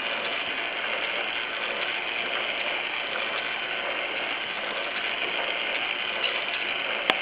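Steady background hiss with no distinct events, then a sharp click near the end.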